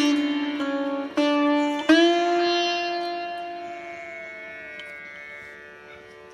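Instrumental background music on a plucked string instrument: a few sharp plucked notes in the first two seconds, then one long note that slides down in pitch and slowly fades.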